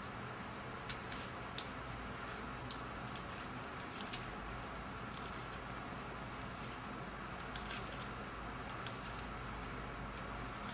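Scattered faint, sharp metallic clicks of an Allen wrench turning screws into a steering wheel's hub adapter, about one every second or so, over a steady low hum.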